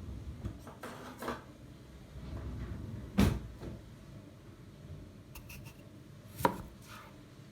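Kitchen knife chopping on a wooden cutting board: two sharp knocks about three seconds apart, with softer knocks and handling noise about a second in.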